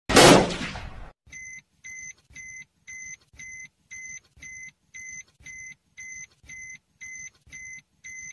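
A loud sudden hit that rings and fades over about a second, then a fainter electronic beep repeating steadily about twice a second.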